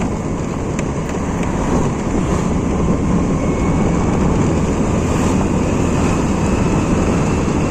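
Steady rush of wind buffeting the microphone over the running of a Honda Scoopy scooter as it rides along the road.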